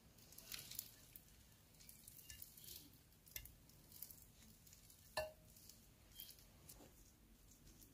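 Faint soft scraping and squishing as a silicone spatula pushes cooked rice and raw chicken pieces out of a glass bowl into a ceramic baking dish, with light clicks throughout and one louder clink of dishware about five seconds in.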